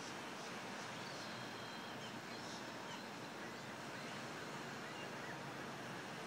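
Steady outdoor background hiss, with a few faint high chirps in the first half.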